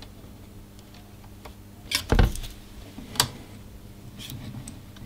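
Screwdrivers being handled against a transceiver's metal chassis and tuning drive during adjustment. A few sharp clicks and clinks, the loudest a heavy knock about two seconds in, over a faint steady hum.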